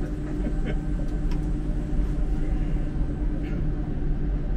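Düsseldorf Airport SkyTrain, a suspended people-mover, running: a steady low rumble with a constant hum and a few faint ticks.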